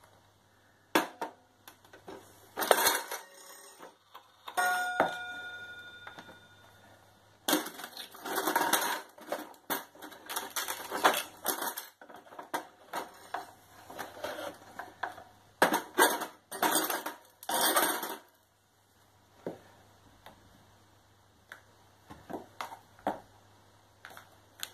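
High-heeled shoes kicking and stomping a wooden wall pendulum clock to pieces: a few sharp knocks, then one metallic ring from the clock's chime being struck, then about ten seconds of rapid crunching and cracking of the wooden case, tailing off into scattered light taps.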